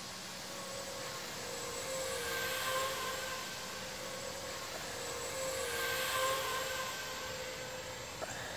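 Electric motors and propellers of a small radio-controlled aircraft whining in flight, growing louder twice as it passes close, then fading.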